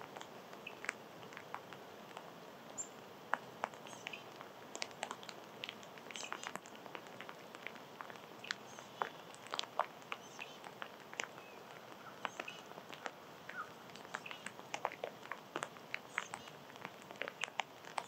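Small birds and critters feeding close to the microphone: many quick, irregular clicks and taps, with a few faint short high chirps, over a steady hiss.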